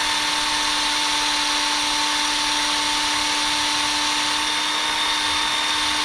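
Cordless power drill running at a steady speed, its bit boring a hole into the nose of a handmade fishing lure; a loud whine held at one unchanging pitch.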